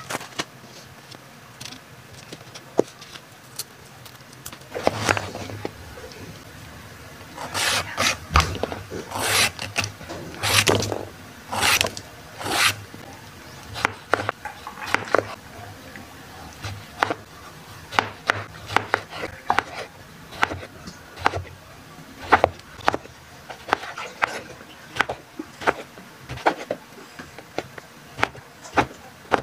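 Plastic bags crinkling as produce is unpacked, then a kitchen knife chopping a green gourd into slices on a wooden cutting board: sharp knocks of the blade on the board, about one to two a second.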